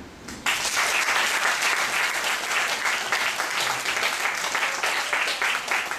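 Audience applauding, starting suddenly about half a second in and continuing steadily.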